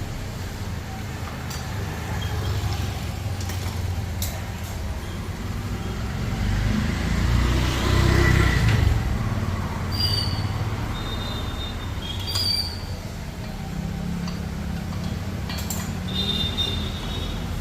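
Road traffic running steadily, swelling louder about eight seconds in as a vehicle passes, with a few sharp clicks and brief high-pitched tones over it.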